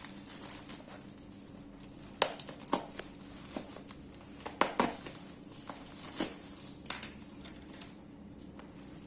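Packaging being handled and opened by hand: crinkling and crackling with sharp ticks, in clusters about two seconds in, around four and a half to five seconds, and near six and seven seconds, over a steady background hum.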